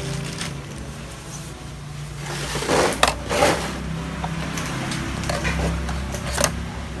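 Rustling and handling noise as a cloth work mat is picked up and laid flat on a TV's metal chassis, with the loudest scuffs about three seconds in and a short one near the end, over a steady low hum.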